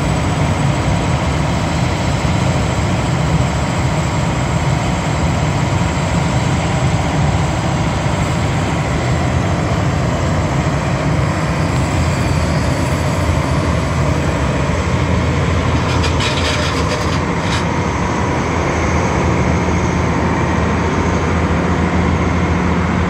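John Deere 9870 STS combine's six-cylinder diesel engine running steadily, with a steady high whine over it. A brief clicking comes about two-thirds of the way through.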